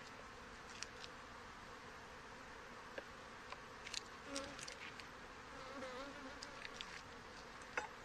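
Honey bees buzzing over an open hive, a steady hum with single bees flying close past now and then. A few light, sharp clicks sound over it, the loudest near the end.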